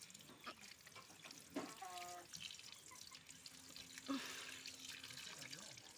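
Faint dripping of rainwater, small scattered drips over a soft hiss, with a brief faint call about two seconds in.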